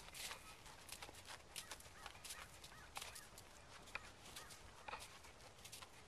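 Faint, irregular hoof steps of a horse moving over arena sand.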